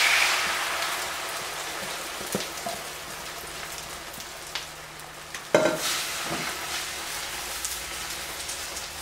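Egg batter sizzling as it fries in hot oil in a nonstick frying pan. The hiss is loudest at the start, just after the batter hits the oil, and slowly dies down. A sharp knock comes a little past halfway, among a few lighter clicks as the egg is stirred.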